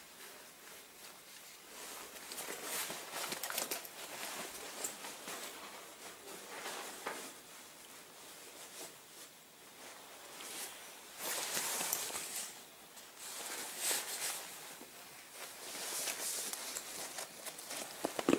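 Gear being handled and packed away: irregular rustling, scraping and small clicks, with a sharper knock near the end.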